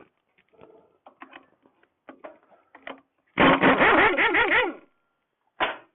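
Pneumatic impact wrench (air gun) hammering on a rusted scooter fastener in one burst of about a second and a half midway, its motor pitch wavering as it hammers, with a shorter burst near the end and small clicks of tools being handled.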